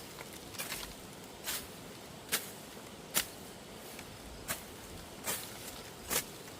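A series of sharp knocks or strikes, about one a second, somewhat unevenly spaced.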